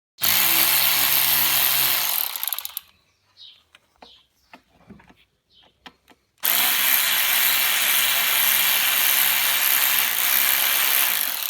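Cordless power tool motor running in two long steady runs, the second about twice as long as the first, with a few small metallic clicks and knocks of tool handling in the gap between them.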